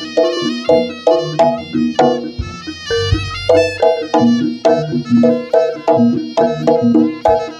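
Javanese gamelan music for a jaranan horse dance: steady pitched metallophone strikes, about three a second, over low drum beats, with no singing.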